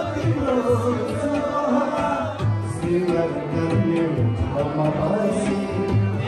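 Live tabla and harmonium playing together, the tabla keeping a steady rhythm of deep bass strokes under a male voice singing a song.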